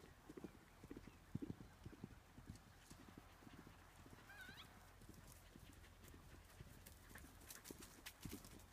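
Hoofbeats of a ridden horse cantering on grass, clearer at the start and near the end as it passes close, fainter in the middle as it circles away. A short high chirp sounds about four and a half seconds in.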